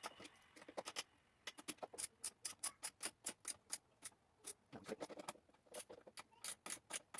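Hand ratchet clicking in quick runs, about five clicks a second with a short break a little past the middle, as a tight fastener is worked by hand.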